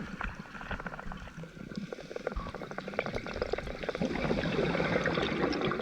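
Underwater reef sound at depth: a dense crackle of short clicks from reef fish and crustaceans over a wash of water noise that grows louder through the second half.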